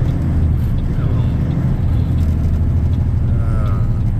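Semi truck's diesel engine running steadily under way, a continuous low drone heard from inside the cab.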